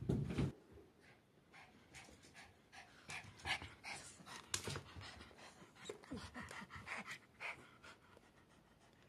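Papillon dog panting quickly and heavily close by, in short repeated breaths during fetch play. A low thump comes right at the start.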